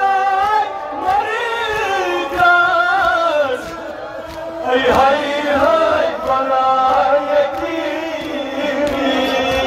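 Male voices chanting a Kashmiri nouha, a Shia mourning lament, into microphones, in a slow, wavering melody. The chant drops in loudness a little past the middle, then swells again.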